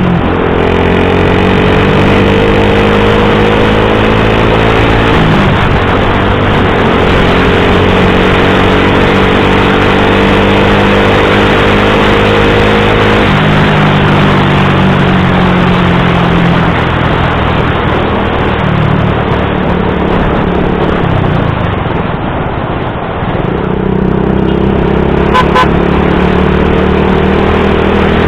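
Motorcycle engine running through an Akrapovic GP M1 exhaust while riding, bassy, its pitch climbing slowly and dropping sharply about five and thirteen seconds in, easing off around twenty seconds in, then climbing again. Heavy wind noise on the microphone runs under it.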